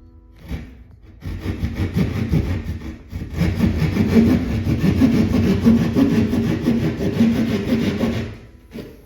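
Hand drywall saw cutting through a gypsum drywall ceiling with rapid back-and-forth strokes for about seven seconds, stopping shortly before the end.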